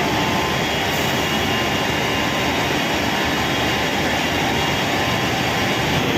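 Steady, loud machinery drone: even noise with no breaks or rhythm, as of heavy machinery running.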